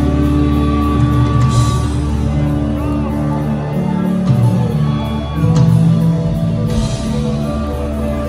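Live rock band playing loud: electric guitar and drums, heard from the audience.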